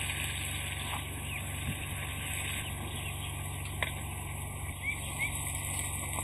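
Chopped tomato and vegetable mixture simmering and sizzling in a wide iron pan over a wood fire, a steady hiss. A few short bird chirps come in around the middle, with a single click just before them.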